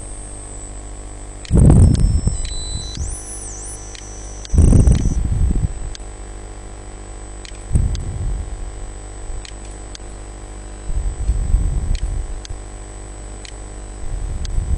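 Steady mains hum and hiss from a desk recording microphone, broken about five times by short low rumbles on the microphone.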